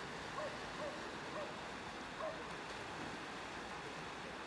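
Small waves washing gently onto a flat sandy shore in a steady hiss, with a dog barking faintly several times, spaced about half a second to a second apart.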